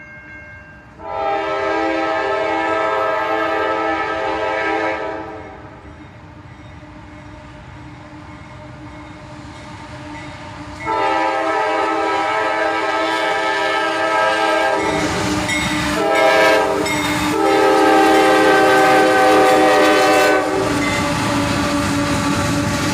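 Air horn of an approaching CSX freight locomotive sounding a steady chord: one long blast, a pause of several seconds, then more long blasts with a brief break in between, as for a grade crossing. From about 15 seconds in, the rumble of the locomotives and the cars on the rails builds under the horn.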